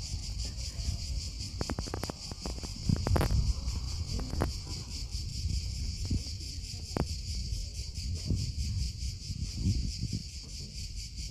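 A steady, high-pitched chorus of insects shrilling with a fast pulsing, over a low rumble. A few sharp clicks cut through, the loudest about three seconds in.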